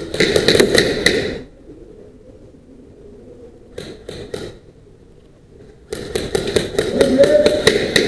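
Airsoft rifles firing: a rapid burst lasting about a second and a half at the start, three quick single shots about four seconds in, and a longer rapid burst of about two seconds near the end.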